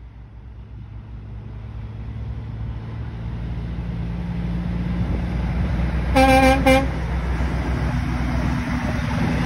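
Diesel engine of a Peterbilt 362 cabover semi truck pulling a tanker trailer, its low rumble growing steadily louder as it approaches. About six seconds in, its horn sounds: a half-second blast followed by a short second one.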